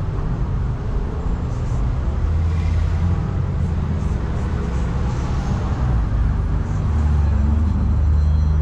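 Steady low drone of engines running, with outdoor street noise; the drone swells slightly about two seconds in and again near the end.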